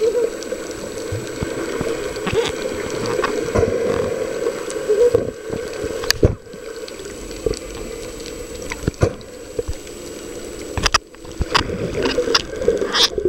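Muffled underwater sound picked up by a submerged camera: a steady low hum and water noise, with scattered sharp clicks and knocks.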